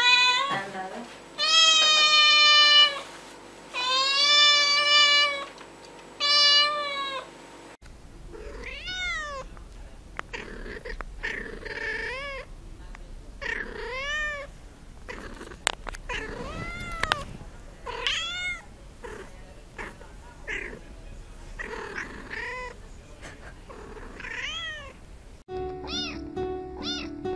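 Domestic cats meowing in a string of separate clips: a white cat gives several long, loud meows; then a calico cat makes a run of shorter meows that rise and fall in pitch; near the end a tabby kitten meows over background music.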